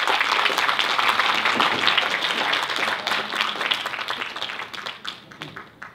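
Audience applauding, a dense round of clapping that thins and fades out over the last couple of seconds.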